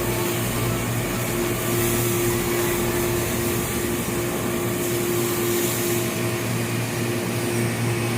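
Steady hum of an electric machine running without a break, with a constant low drone and a hiss above it.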